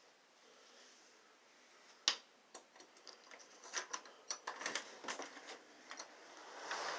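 Irregular clicks and rattles of things knocked about by gusty wind, starting with one sharp knock about two seconds in, after a faint hiss. Near the end a gust of wind swells up.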